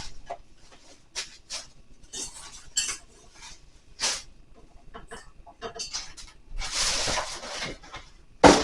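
Packaging and parts being handled while a kitchen mixer is unboxed: scattered knocks, clicks and rustles of cardboard and plastic, a longer rustle about seven seconds in, and one sharp, loud knock near the end.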